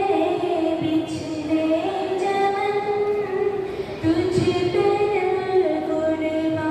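A girl singing solo into a microphone, without accompaniment: long held notes that glide from one pitch to the next, in two phrases with a short breath just after the middle.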